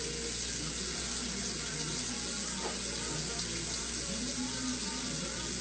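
Water running from a kitchen tap into a stainless steel sink holding raw chicken pieces, a steady splashing hiss.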